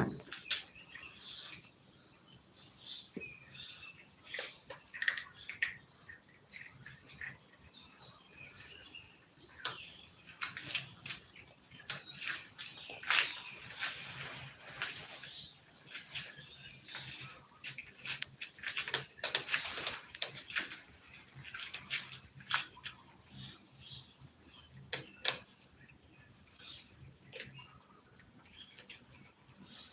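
Steady high-pitched insect chorus, with a second insect trill pulsing evenly just below it, and scattered faint clicks and short chirps.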